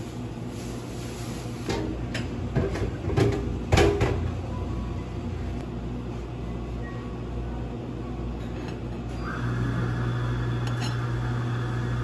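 A metal cake knife clicking and knocking against the cake board as a slice is cut, several sharp knocks close together over a steady low machine hum. About nine seconds in, a louder steady hum with a higher tone starts.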